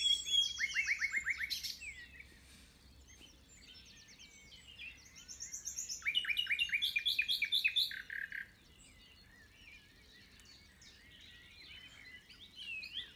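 Common nightingale singing: a loud phrase of fast repeated notes at the start and another about six seconds in, with fainter birdsong between them.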